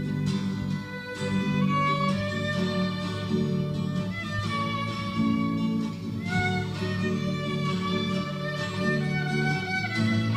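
Live band playing an instrumental passage with no singing: a held lead melody that slides in pitch about six seconds in, over sustained chords and bass.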